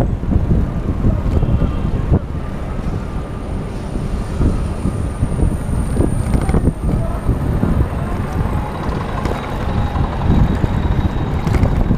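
Wind buffeting the microphone of a bike-mounted action camera while riding in city traffic, a loud, uneven rumble, with the noise of passing cars and trucks under it.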